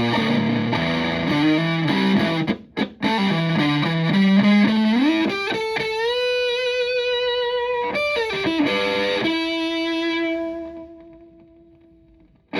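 Electric guitar (Stratocaster) played through a Tone Bender MKII fuzz pedal into a Fender Twin Reverb–style amp, with a thick fuzzy tone. A short riff is followed by a note bent up and held with vibrato, then a slide down to a long sustained note that fades out near the end.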